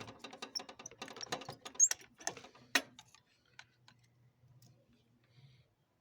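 Flat screwdriver prying at a stuck motorcycle kick-start lever: a run of small metal clicks and scrapes over the first three seconds, with two sharper clicks, then only faint ticks.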